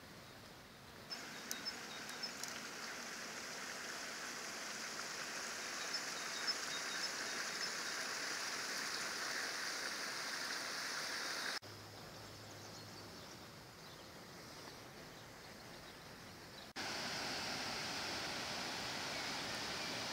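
Steady rush of river water flowing over stones, with a few faint ticks early on. A little past halfway it drops abruptly quieter for about five seconds, then comes back at full level.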